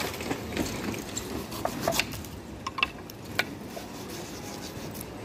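Kitchen knife cutting and scraping through pineapple rind, with a few sharp clicks of the blade in the middle.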